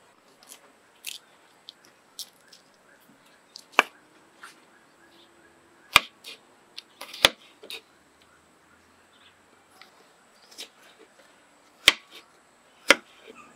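Kitchen knife slicing through firm fruit flesh onto a wooden chopping board: irregular sharp knocks as the blade strikes the board, a dozen or so, with a few louder strikes near the middle and near the end.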